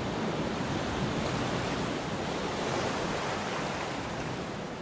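Sea waves washing in a sea cave: a steady rushing wash that swells a little around the middle.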